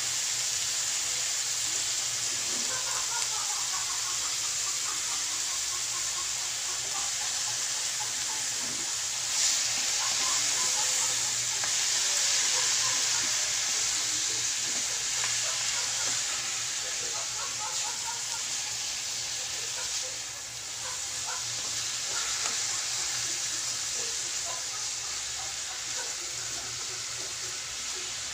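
Chicken pieces frying in a metal wok with chopped onion and garlic: a steady sizzling hiss with small crackles, while a spatula stirs and turns the meat. The sizzle swells about a third of the way in and dips briefly about two-thirds of the way through.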